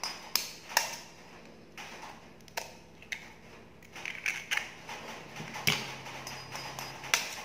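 Chicken eggshells cracked open with taps of a knife blade over a ceramic bowl: several sharp cracks at uneven intervals, with smaller crackling as a shell is pulled apart about four seconds in.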